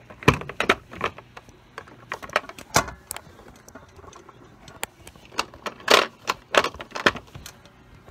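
Handling noise on a phone's own microphone: irregular knocks, taps and scrapes as the fallen phone is gripped and set back up, with a few sharper knocks near the start and again after the middle.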